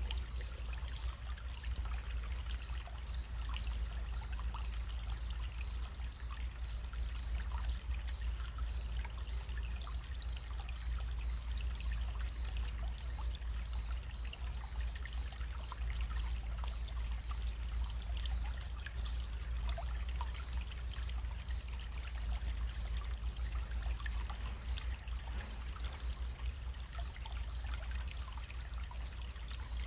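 Small running stream trickling steadily, a dense patter of tiny splashes, with a steady low rumble underneath.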